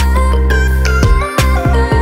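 Background music with a deep held bass and a few kick-drum hits.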